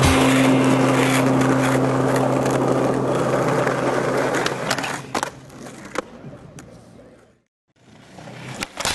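Skateboard wheels rolling on rough asphalt, a loud even rolling noise with a low steady hum under it, fading away after about four seconds. Two sharp clacks of the board follow, then the sound cuts out briefly before faint outdoor sound returns near the end.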